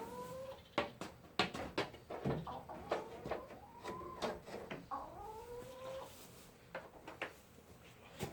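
Farm animals calling: a few drawn-out calls, each rising then falling in pitch, among scattered clicks and knocks.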